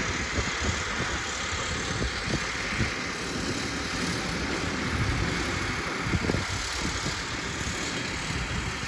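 A vehicle engine running steadily, with wind gusting on the microphone.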